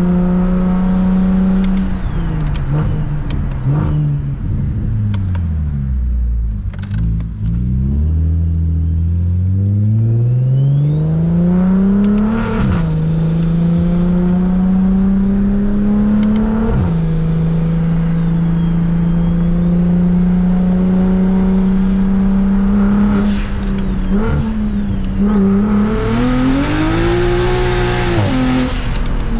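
Single-turbo N54 inline-six of a 600 hp BMW 335is on the move. It holds a steady speed, falls away as the car slows, then pulls up through the gears with two upshifts and settles to a cruise. Near the end it revs hard with a loud rushing noise before easing off.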